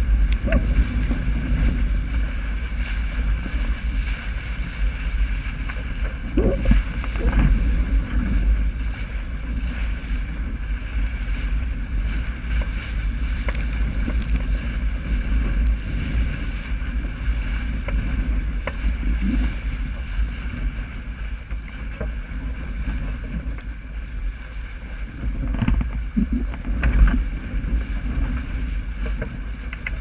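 Wind buffeting a boat-mounted camera's microphone as a heavy low rumble, over water rushing and spraying along the hull of a wooden Graduate dinghy sailing fast in strong wind.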